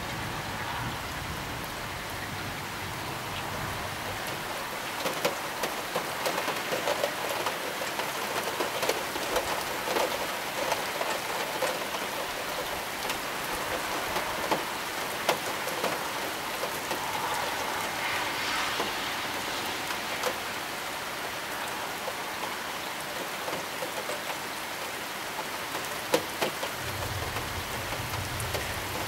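Heavy rain pouring steadily in a summer thunderstorm downpour, with many sharp drop impacts close by. A low rumble sounds at the start and again near the end.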